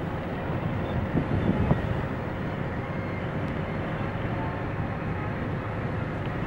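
Steady road and engine noise heard from inside a moving car's cabin, with a few brief louder bumps between one and two seconds in.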